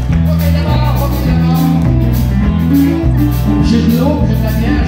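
Live country band playing, with guitars over an electric bass line that steps between notes on a steady beat.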